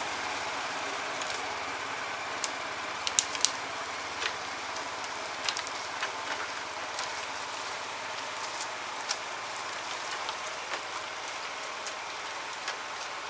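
Homemade karakat all-terrain vehicle's Lifan 15 hp engine running steadily, with scattered sharp clicks and crackles, several close together about three seconds in.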